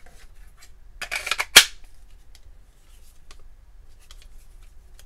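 Knife handled in a hard Kydex sheath: a short plastic scrape about a second in that ends in one sharp click, then a few faint light ticks.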